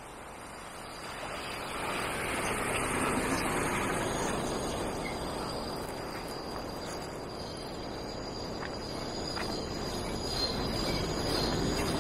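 Train running past: a broad rumble that swells about two seconds in and stays, with a thin steady high squeal above it.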